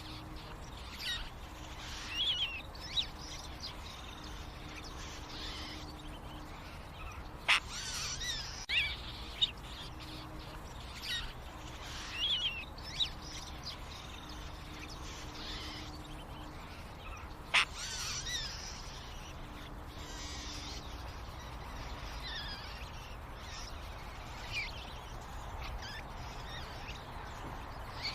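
Blue jays calling: scattered short chirps and calls, with two sharper, louder calls about seven and seventeen seconds in.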